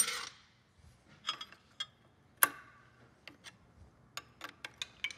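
Metal hand tools and engine fittings clinking and clicking as parts are fitted to an engine on a workbench: irregular sharp taps, some with a short metallic ring, the loudest at the start and about two and a half seconds in.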